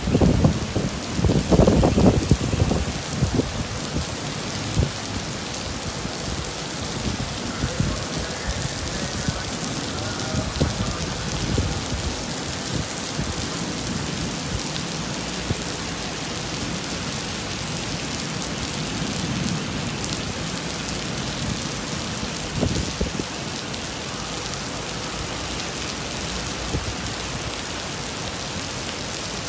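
Torrential rain pouring steadily onto paving and the street, an even hiss. Loud low rumbling gusts come in the first three seconds, with a few weaker low swells later on.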